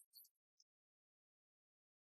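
Near silence: a faint high-pitched hiss for about the first half second, then dead silence.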